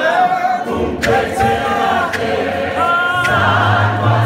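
Church choir of men's and women's voices singing a Zulu gospel song a cappella, with sharp beats about once a second.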